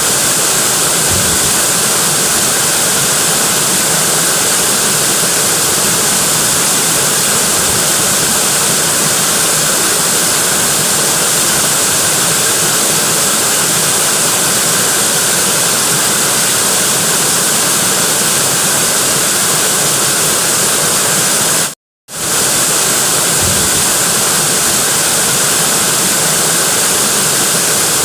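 Natural waterfall: a loud, steady rush of falling water. It cuts out for a split second about 22 seconds in, then carries on unchanged.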